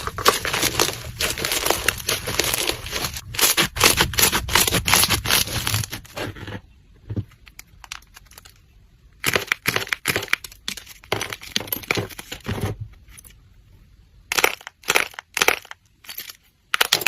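Slime being squeezed and pressed by hand, giving a dense run of small crackles and pops for about six seconds, then quieter, with scattered clusters of crackles later on.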